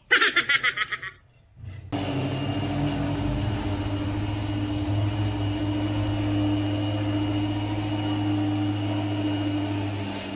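A brief fast rattle close up at the start, then, from about two seconds in, a lawnmower motor running steadily with a faint high whine over it.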